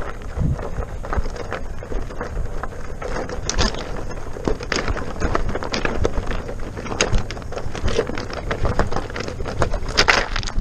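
King Song S18 electric unicycle's 18-inch tyre rolling over a stony dirt trail: a steady rumble with frequent irregular clicks and knocks as it runs over loose rocks.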